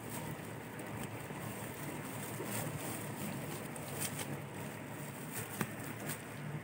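Wind rumbling on the microphone, with a few short crackles and rustles from a nylon mesh sack being handled.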